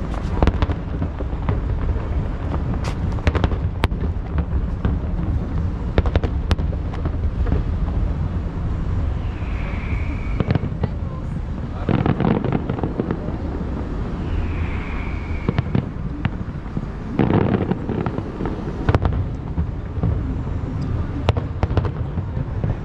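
Aerial fireworks shells bursting: many sharp bangs and deeper booms over a constant low rumble, with two short high whistles about ten and fifteen seconds in.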